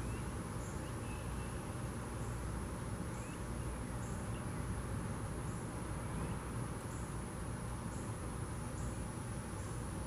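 Insects droning steadily at a high pitch, with a short, slightly lower chirp repeating about once a second.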